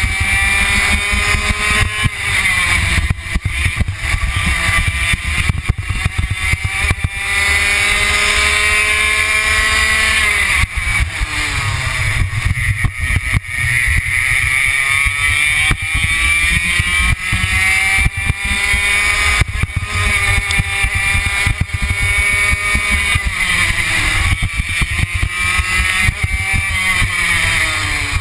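Racing kart's engine heard from on board at full race pace: its pitch climbs long and steadily, then drops sharply, over and over as the throttle is opened and lifted.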